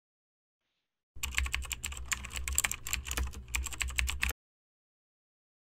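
Keyboard typing sound effect: a quick run of key clicks for about three seconds, starting about a second in and stopping suddenly, laid over on-screen text being typed out.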